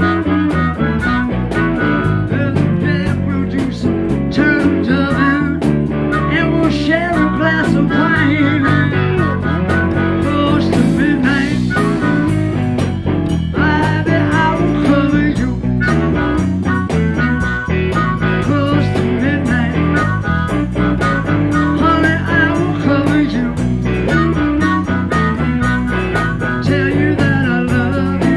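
Live electric blues band playing: an amplified harmonica wails and bends notes over electric guitars and a drum kit.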